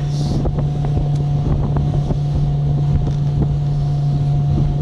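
Speedboat under way at speed: its engine drones steadily, with rushing water and wind buffeting the microphone.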